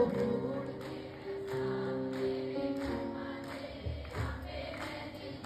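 Electronic keyboard playing a short instrumental interlude of a Punjabi devotional song, a melody over held notes, much softer than the singing around it.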